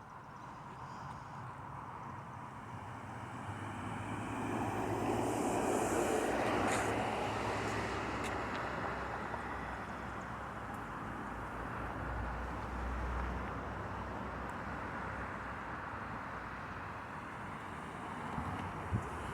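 Rolling thunder from a thunderstorm: a long, low rumble that swells to its loudest about six seconds in and then lingers, with a deeper roll around twelve seconds in.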